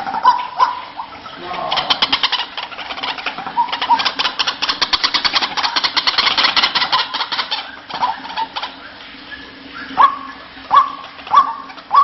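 White-breasted waterhen calling: a fast run of chattering notes from about two seconds in until about seven and a half seconds in, then loud, repeated calls with a sharp upward sweep, about two a second, from about ten seconds in.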